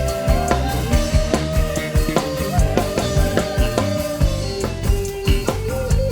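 Dangdut band playing live through a PA system during a sound check: drum kit with a regular beat of kick and snare, a steady bass line, and a held melody line over the top.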